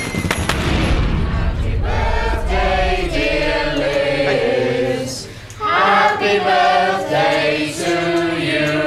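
A group of voices singing together in held notes, in phrases with a brief break between them, after about two seconds of soft noise.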